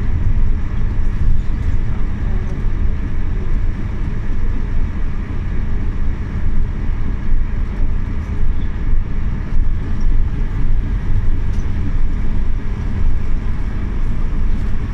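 Scania OmniLink city bus heard from inside the cabin: a steady low rumble from its five-cylinder diesel engine and running gear, with no distinct events.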